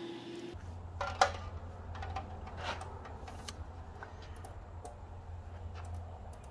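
A scattering of light ticks and taps, one sharper than the rest about a second in, over a steady low hum.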